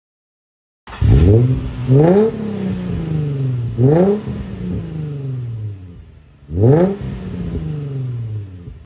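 2004 Nissan 350Z's 3.5-litre V6 firing up about a second in, then blipped three times through the dual exhaust, each rev falling back to idle. Thick vapour from both tailpipes marks it as a cold start.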